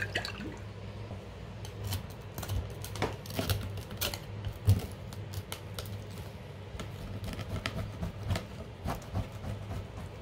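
Plastic pizza server scraping and clicking against a perforated metal pizza pan as slices of pizza are pried loose and lifted, in many short irregular strokes. A low steady hum runs underneath.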